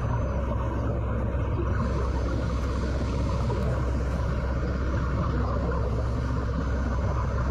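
Steady low underwater rumble with a faint even hiss, unchanging throughout, with no distinct knocks or bubble bursts.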